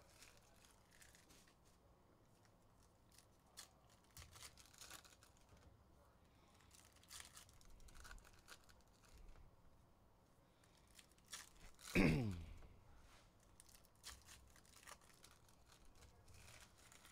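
Faint tearing and rustling as basketball card packs are ripped open and the cards handled. About twelve seconds in, a short, louder sound falls sharply in pitch.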